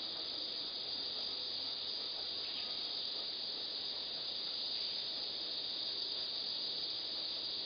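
Steady high-pitched hiss or drone that does not change, with no distinct clicks or knocks.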